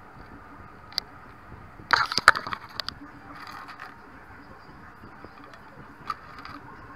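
Hard plastic toy army men clicking and clattering as they are handled and dropped onto a pile of soldiers on a desk: a single click about a second in, a burst of clatter around two seconds in, then a few lighter clicks.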